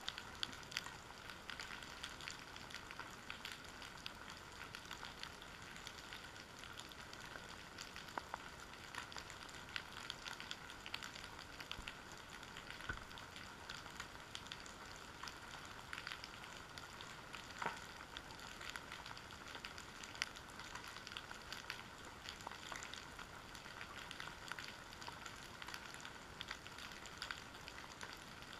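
Underwater ambience picked up by a camera resting on the seabed: a faint steady hiss full of small scattered clicks and crackles.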